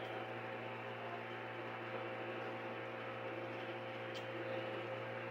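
Steady electrical hum with a constant hiss, and a faint click about four seconds in as the compressor's metal piston parts are handled.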